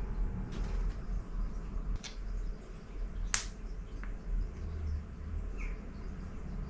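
A few short, sharp clicks of frag plugs and a glue tube being handled on a desk, the loudest about three and a half seconds in, over a low steady hum.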